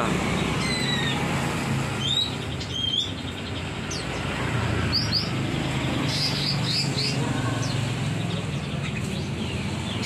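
Many caged songbirds chirping and whistling, with short high calls overlapping throughout, over a steady low background rumble.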